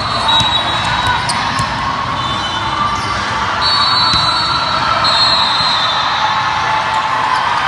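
Echoing sports-hall din during a volleyball serve and rally: scattered sharp knocks of balls being hit and bouncing, short high squeaks, and a steady murmur of crowd voices.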